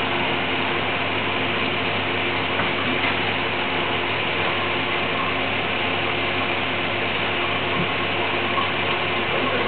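Steady whirring hum of a running machine, unchanging throughout, with a few faint clicks.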